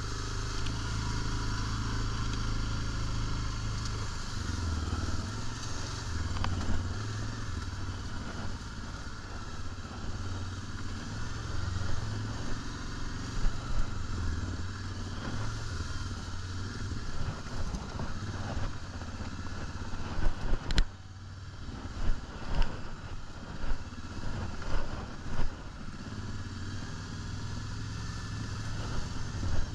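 ATV engine running while riding a bumpy dirt trail, with steady engine noise and rattle from the machine. About two-thirds of the way through, the level drops for a moment, then a run of sharp knocks and thumps follows over a few seconds.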